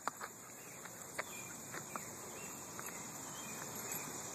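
Steady high-pitched chirring of crickets, with a few light clicks in the first two seconds.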